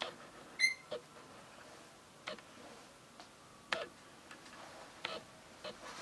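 Rainbow lorikeet giving one short, high chirp about half a second in, among a handful of sharp, irregular clicks and taps.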